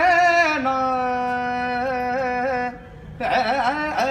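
A man singing unaccompanied: the wordless, drawn-out opening of a Punjabi song, one long held note with small wavers in pitch, a brief break near three seconds, then quick ornamented turns up and down.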